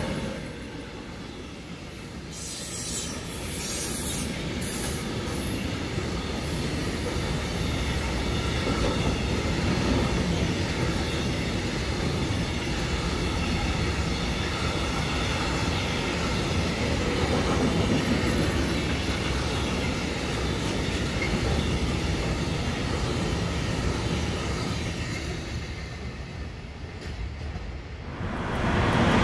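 Freight train of container and tank wagons rolling past: a steady rumble of wheels on rail with a thin, steady high tone over it. It grows louder after a few seconds and fades near the end.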